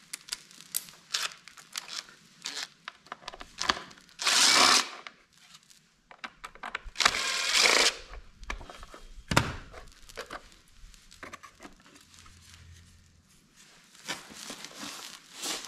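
Cordless DeWalt power driver running in two short bursts, about four and seven seconds in, backing screws out of a generator's plastic cover panel. Between them come scattered clicks and knocks as the screws and the panel are handled.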